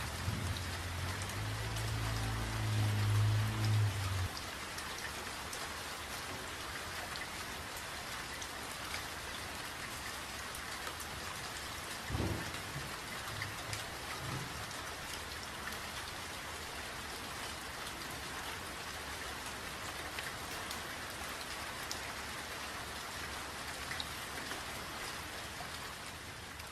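Steady rain falling on a surface, with a low rumble during the first few seconds and a brief low thump about twelve seconds in.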